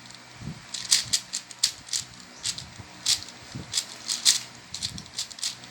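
Plastic Rubik's cube being turned quickly during a solve: irregular clicks and clacks of the layers snapping round, several a second.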